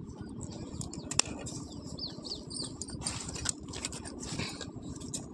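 Cauliflower leaves rustling as they are handled and cut with scissors, with a sharp snip-like click about a second in and a louder stretch of rustling around three seconds in.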